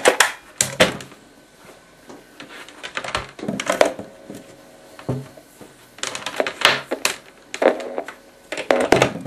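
Taps and knocks on the tin enclosure of a homemade noise maker, picked up by its speaker working as a contact microphone and played through a small guitar amp with a delay effect. A scattered series of sharp knocks, some followed by short ringing tails.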